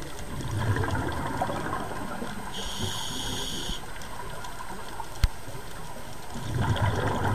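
Underwater sound of a scuba diver's breathing: two surges of exhaled regulator bubbles, about six seconds apart, near the start and near the end, over a steady underwater hiss. A brief high-pitched tone sounds about halfway through and a single sharp click about five seconds in.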